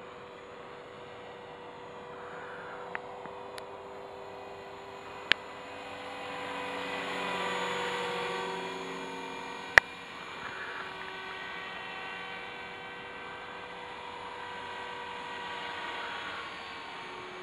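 Align T-Rex 450 Pro electric RC helicopter flying overhead: the steady whine of its motor and rotor, swelling louder and bending in pitch about halfway through as it comes nearer. A few sharp clicks, the loudest about ten seconds in.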